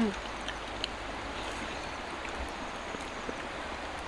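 Steady outdoor background hiss with a few faint scattered clicks, and a brief low pitched hum right at the start.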